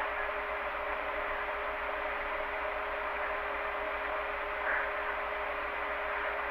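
Steady refrigerator-style hum: an even hiss over a few constant humming tones and a low pulsing drone, with one short faint blip about five seconds in.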